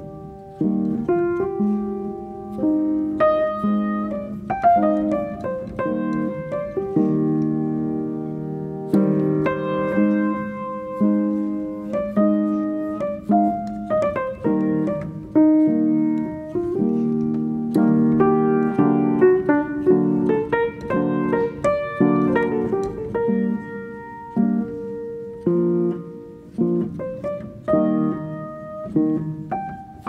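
Background piano music: a gentle tune of notes and chords struck one after another, each fading away.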